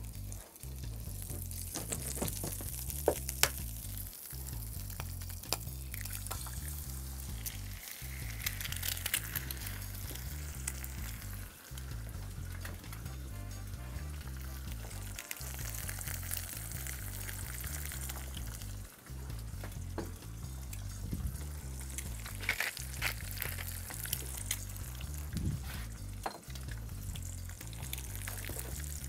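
An egg frying in hot bacon fat in a wrought iron pan: steady sizzling with crackles, and two sharp louder pops about three seconds in. Background music with a low, pulsing beat runs underneath.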